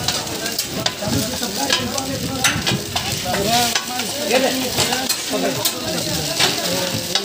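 Eggs frying and sizzling in oil on a large flat iron griddle, with a metal scraper-spatula scraping and clicking against the hot surface several times.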